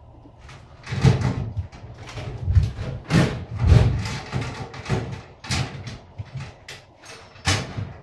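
A string of irregular metallic knocks, clunks and bangs from hand tools being handled and struck, around a stuck motorcycle rear axle bolt.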